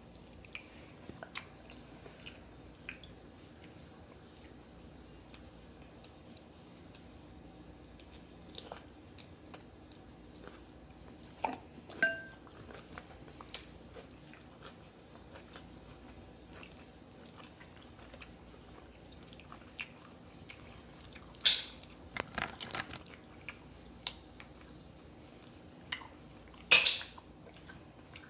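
Close-miked eating of a seafood boil: quiet chewing with scattered small clicks and cracks of shells being broken open, a few louder cracks about midway and near the end, and a light clink about twelve seconds in.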